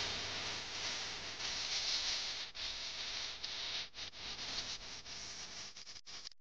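A steady hiss of background noise, which breaks up and drops away near the end.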